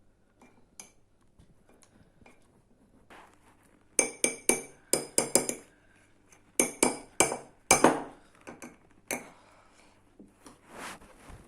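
Cutlery clinking against a dish in a few quick runs of sharp strikes, several a second, with a faint ringing tone after each; a last single clink comes near the end.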